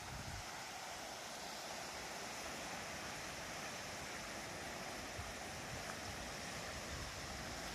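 River swollen by a typhoon, running in flood with a steady rush of water.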